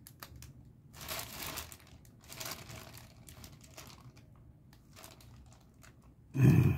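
Plastic packaging crinkling in intermittent bursts as it is handled, with one short, louder bump near the end.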